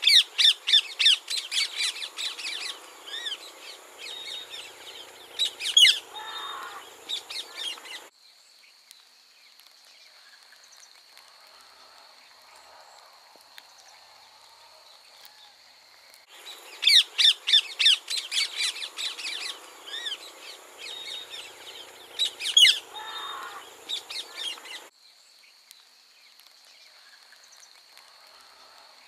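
Rose-ringed parakeets screeching in rapid runs of shrill calls. The calls come in two spells of about eight seconds each, with a quieter gap between them that holds only a faint steady high tone.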